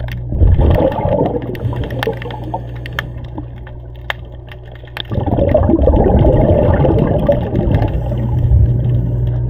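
Scuba diver's exhaled bubbles gurgling out of the regulator underwater, two breaths: a shorter one right at the start and a longer one from about five seconds in, over a steady low hum.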